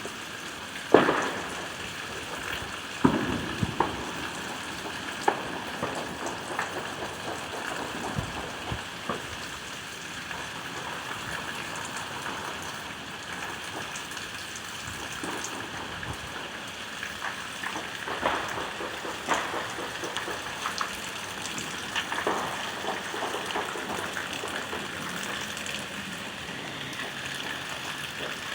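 Steady rain with scattered distant bangs of fireworks and gunfire, the sharpest about a second in and around three seconds in, then sporadic pops and cracks.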